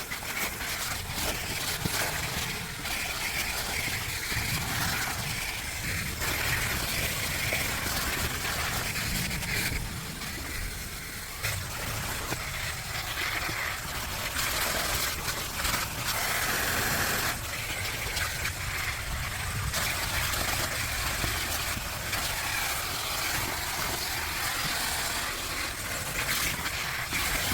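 Vacuum cleaner running steadily with a rushing suck of air, its tone shifting now and then as the nozzle is worked over the back of the car's interior.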